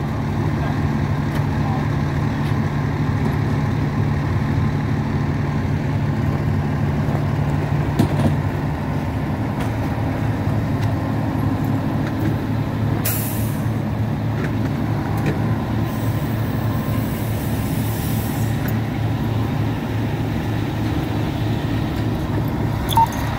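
Fire truck's diesel engine idling steadily. A short hiss of air comes about halfway through, and a longer one a few seconds later.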